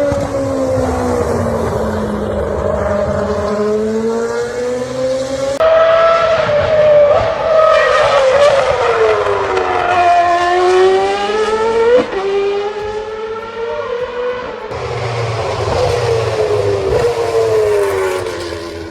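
Naturally aspirated 2.4-litre Renault V8 of the 2013 Red Bull RB9 Formula 1 car running on track, its high-pitched note repeatedly falling and rising as it lifts off and accelerates through the gears. Several clips are cut together, with abrupt jumps in the sound about five and a half, twelve and fifteen seconds in.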